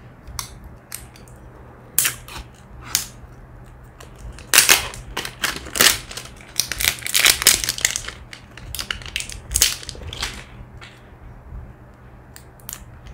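Clear plastic wrapping crinkling and crackling as it is peeled off the handle of a new badminton racket, in irregular spells that are densest in the middle.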